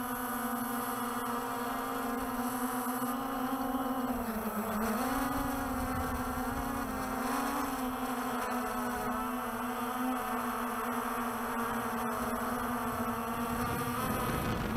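The six rotors of a Walkera TALI H500 hexacopter buzzing in flight, a loud bee-like drone. Its pitch dips briefly about four seconds in and then recovers, with smaller wavers as the rotor speed changes.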